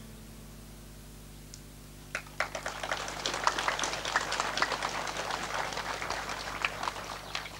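Audience applauding. The clapping starts about two seconds in and dies away near the end, over a low steady hum.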